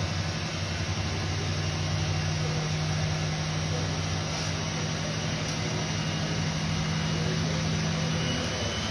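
Siemens Siwamat Plus 573 front-loading washing machine running through its rinse-and-spin programme, giving a steady motor hum.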